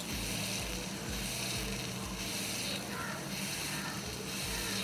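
Spoon stirring and fluffing freshly cooked cauliflower biryani in an aluminium pressure cooker pot: a soft, steady rustling and scraping of rice with no sharp knocks.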